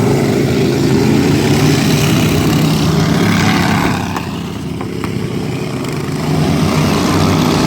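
Several racing lawn mower engines running hard. The sound fades about four seconds in and swells back up near the end as the pack comes around again.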